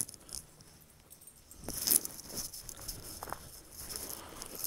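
Footsteps crunching through dry fallen leaves on a dirt trail, with a louder rustling crunch about two seconds in.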